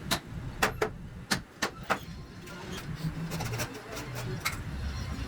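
A run of sharp knocks from hand tools striking wood, about six in the first two seconds, then a quicker string of lighter taps later on, over a steady low rumble.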